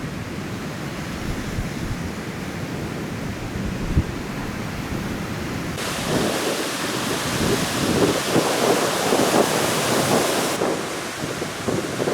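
Heavy surf breaking on the shore in strong monsoon wind, with wind buffeting the microphone in a low rumble. About six seconds in the sound turns abruptly louder and hissier, then falls back just before the end.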